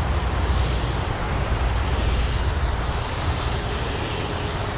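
Steady rumble of highway traffic running close by.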